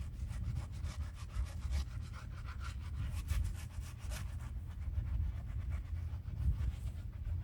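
Stiff brush scrubbing old concrete by hand in quick, repeated strokes, easing off after about four seconds, over a steady low rumble.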